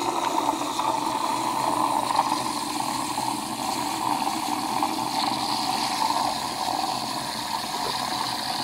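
Steam wand of a Saeco Via Venezia espresso machine steaming milk in a stainless steel pitcher: a steady hiss as the milk foams, with a higher hiss coming in about five seconds in.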